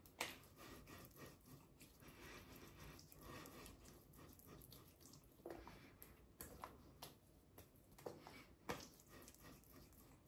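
Faint skin-on-skin rubbing and light patting of hands working aftershave balm into the neck and face, with a few small sharp slaps or clicks, the loudest just after the start and again near the end.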